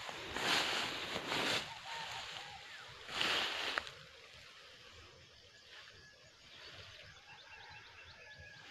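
Rustling and crunching of dry grass underfoot and brushing the phone as someone walks through a grassy field: two loud bursts, one near the start and one about three seconds in, then quieter rustling with faint high chirps in the background.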